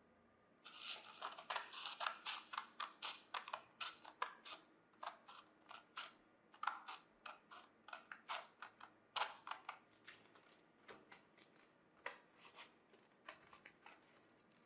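Quick series of short, crisp scratchy strokes, about three a second, made by hand working a material; they thin out near the end.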